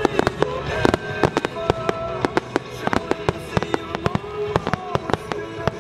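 Fireworks bursting overhead in a quick string of sharp bangs and cracks, several a second, over music playing along with the display.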